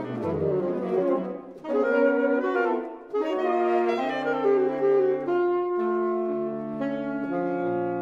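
Saxophone trio of alto, tenor and baritone saxophones playing a classical chamber piece: quick phrases broken by short breaks for the first few seconds, then longer held notes in three overlapping parts.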